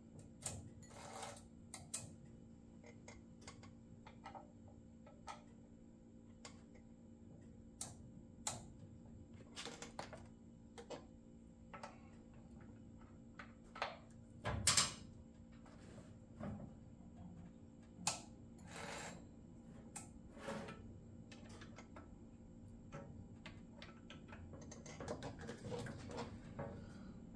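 Scattered light metallic clicks and taps of hand tools and saw chain as a bar and chain are fitted and tensioned on a Shindaiwa 600SX chainsaw, over a faint steady hum. The loudest knock comes a little past halfway.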